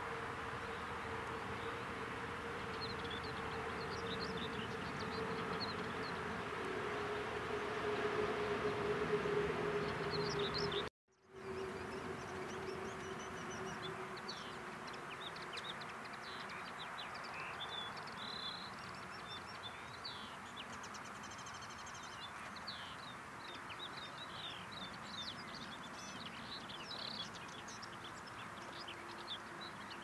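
Outdoor ambience. A flying insect buzzes in a steady low hum, with a few high bird chirps over it. After a brief cut about eleven seconds in, many quick, high bird chirps and twitters carry on over a fainter hum.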